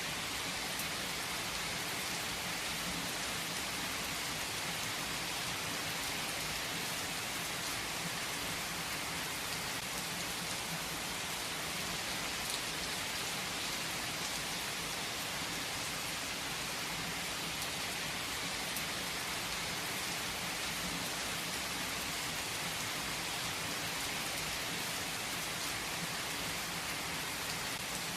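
Steady rain falling and pattering on a surface, an even hiss with fine drop ticks throughout.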